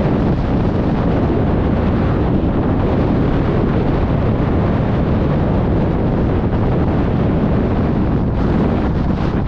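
Storm-force wind blowing across the microphone: a loud, deep, steady rushing noise with no let-up.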